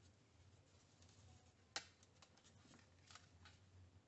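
Near silence over a faint low hum, broken by a few small clicks of parts and tools being handled on an electronics workbench while preparing to solder. One click, a little under two seconds in, is sharper than the rest.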